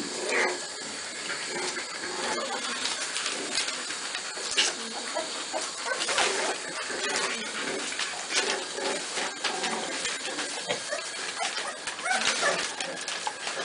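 American Staffordshire terrier puppies play-fighting on newspaper: short puppy whimpers over a steady crackle and rustle of paper under their paws.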